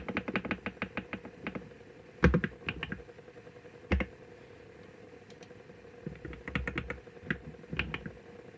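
Computer keyboard typing: a quick run of about ten key clicks at the start, two heavier key strikes near two and four seconds in, then another flurry of keystrokes after a short pause.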